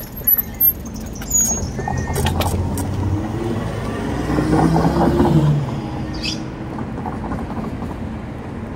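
A car drives past, its engine and tyre noise swelling to a peak about five seconds in, then fading into steady street traffic noise. A few sharp clicks come in the first three seconds.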